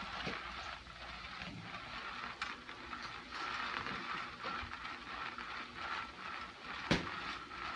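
Motorized cat toy whirring steadily under its fabric cover, driving a wand back and forth, with a few light clicks and one sharp tap about seven seconds in.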